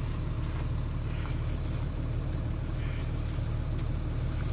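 Semi truck's diesel engine idling steadily, a constant low rumble heard from inside the cab.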